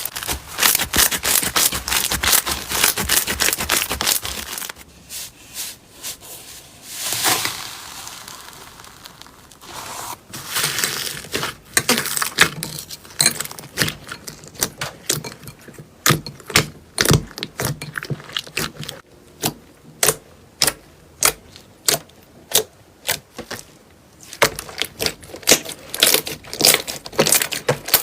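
Slime being squeezed and worked by hand for ASMR. Dense crackling for the first few seconds gives way to a run of sharp pops and clicks, about two a second, through the second half.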